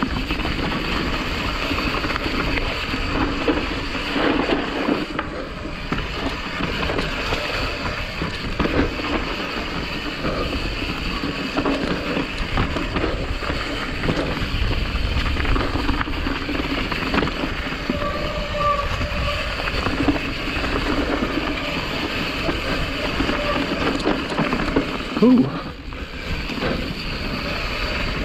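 Mountain bike riding down a dirt trail: tyres rolling over dirt, roots and leaves, with the chain and frame rattling and wind rumbling on the microphone. A sharp loud knock comes about twenty-five seconds in, like the bike hitting a bump or landing.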